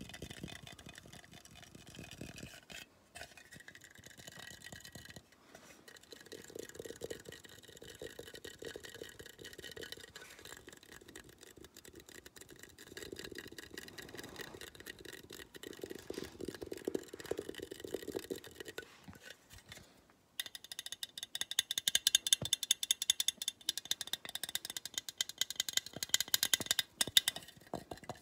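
Fast fingernail tapping and scratching on a blue translucent bear-shaped container, a dense run of small clicks. About two-thirds of the way through it turns louder and sharper.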